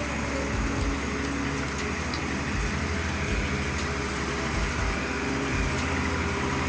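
A motor grader's diesel engine running steadily amid street noise.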